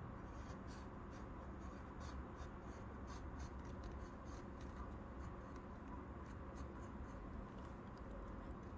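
Wooden graphite pencil scratching faintly on paper in many short strokes, drawing a row of zigzag spikes, over a low steady hum.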